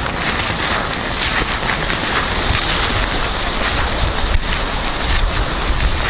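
Wind buffeting an action camera's microphone as it is carried at walking pace, a steady rumbling hiss with faint rustles and ticks through it.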